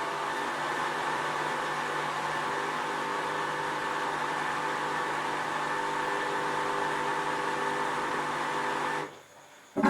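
Esatto EFLW9 front-loading washing machine running, a steady whir with several steady hum tones, which stops abruptly near the end.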